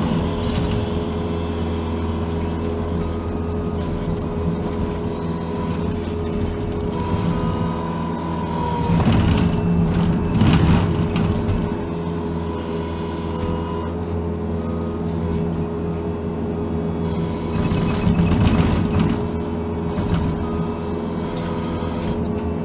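Case TV450 compact track loader's diesel engine running steadily, heard from inside the cab, with a steady whine over the engine note. The machine swells louder twice, about nine seconds in and again about eighteen seconds in, as it works.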